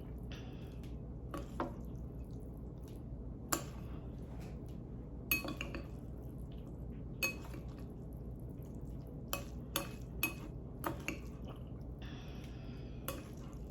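Chopsticks clicking against a bowl while stirring and pulling apart sticky noodles: scattered, irregular taps, several close together near the middle.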